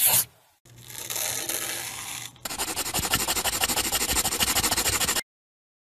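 A crayon scribbling on paper: first a steady papery scrape for about two seconds, then fast back-and-forth scribbling strokes, many to the second, stopping abruptly about five seconds in.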